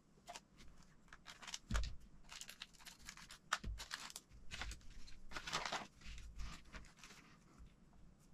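Clear plastic parts bags crinkling and rustling in the hands as they are picked up and torn open, with a few short crackles and a couple of dull thumps.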